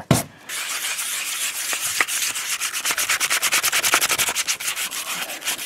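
180-grit sandpaper rubbed by hand over a flexible PVC glue-on mounting pad in quick, even back-and-forth strokes, starting about half a second in. The pad is being scuffed to rough up its surface before gluing.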